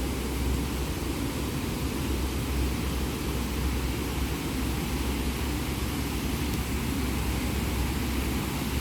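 Steady low rumble and hiss of a car in motion, even throughout.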